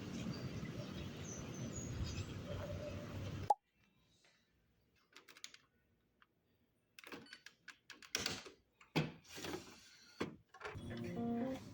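A steady rush of room noise that cuts off abruptly, then a run of scattered clicks and knocks like small objects being handled or keys tapped. Soft plucked-string music comes in near the end.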